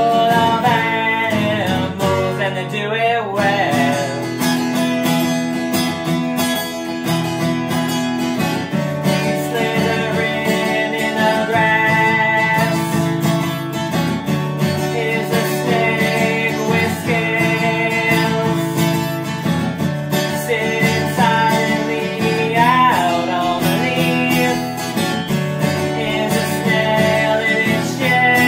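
Upbeat children's song on strummed acoustic guitar, with a man singing in places.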